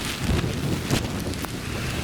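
Typhoon wind buffeting the microphone, a low rumbling rush with rain noise mixed in and a couple of short sharp hits about a third of a second and a second in.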